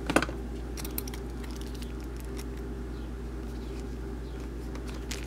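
Small screwdriver driving a screw into the sheet-metal frame of a car CD changer mechanism: a sharp click near the start, then faint scattered ticks, over a steady low hum.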